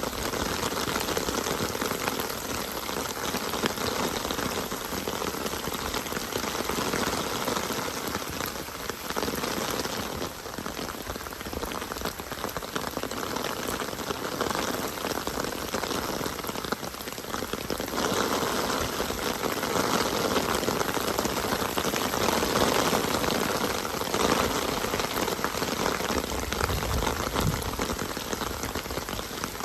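Steady rain falling, an even wash of drops that swells and eases slightly.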